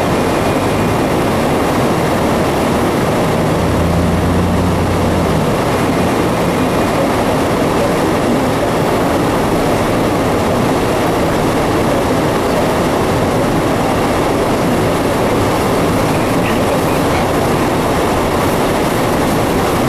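Steady road noise inside a car driving on a snow-covered road: tyre and engine noise, with a low engine hum standing out for a couple of seconds about four seconds in.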